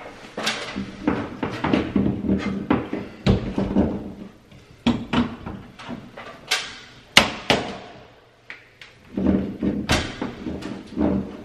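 Knockout being knocked out of the top of a metal breaker panel with a screwdriver: a run of irregular sharp metal knocks and taps, the loudest about seven seconds in.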